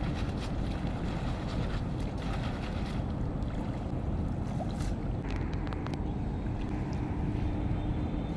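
Wind buffeting the microphone, with water sloshing and splashing around a person wading in a pond and handling a fish net. A faint steady hum runs underneath.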